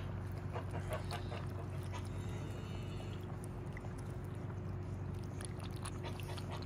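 Two cats lapping milk from a plastic bowl: many quick, small wet ticks, over a steady low hum.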